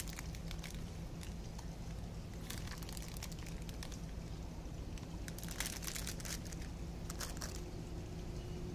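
Thin plastic snack bag crinkling in several short bursts as mixed nuts and beans are tipped out of it into a hand, over a steady low hum.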